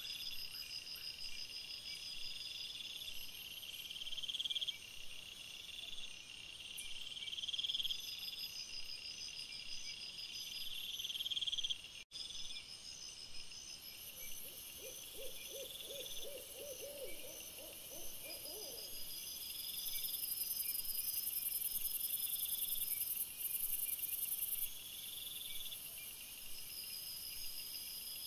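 Night chorus of evenly repeating high chirps from insects or frogs. From about 14 to 19 seconds in, a low, fast trilling call of rapidly repeated notes joins it. The sound drops out briefly about 12 seconds in.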